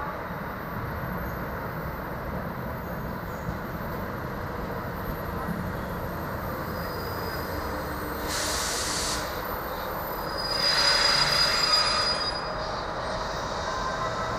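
Passenger train hauled by a Czech Railways electric locomotive rolling slowly into the station with a steady rumble. About eight seconds in comes a short high hiss, then, for about two seconds, a louder high-pitched squeal from the brakes and wheels as the train slows to stop.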